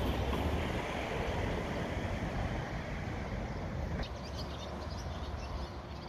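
Outdoor wind buffeting the microphone as a low rumble over a steady rush of noise that slowly eases, with faint short high chirps in the last couple of seconds.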